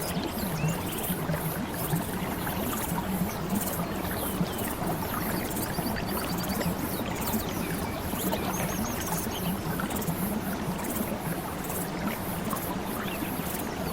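Steady flowing-water ambience, an even rushing noise with short high trills recurring now and then.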